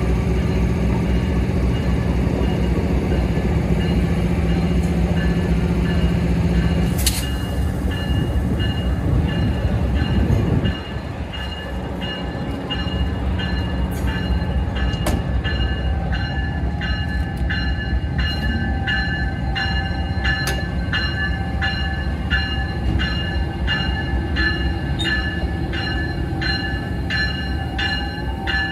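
A locomotive idling with a steady low hum, a sharp clank about seven seconds in, and the engine note dropping about ten seconds in. From then on the locomotive bell rings steadily at about two strikes a second.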